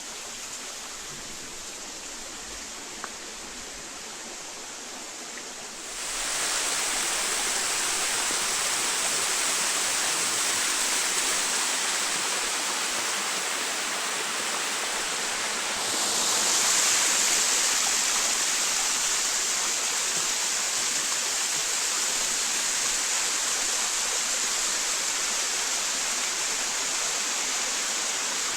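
Creek water rushing over rocks, a steady hiss of flowing water that steps up louder about six seconds in and again about halfway through.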